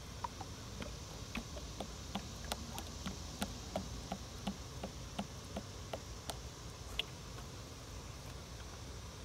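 Faint, light clicks and taps, about two to three a second, stopping at about seven seconds: a thin metal rod being worked up and down inside a funnel in a hydraulic reservoir's filler neck.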